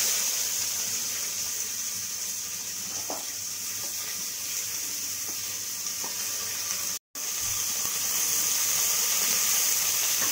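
Sliced onions sizzling in hot oil and ghee in a pressure cooker: a steady hiss, loudest at first as they go in, then settling. It cuts out for a moment about seven seconds in.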